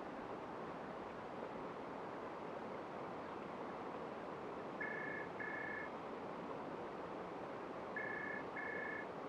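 Steady rushing of flowing river water, with a short two-tone electronic beep sounding in pairs, twice: about five seconds in and again about eight seconds in, in a ringing pattern like a phone.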